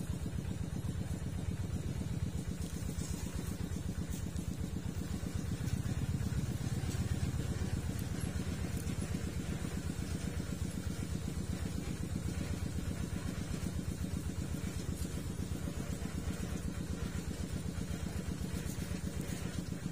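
A small engine running steadily at idle with an even low pulsing hum.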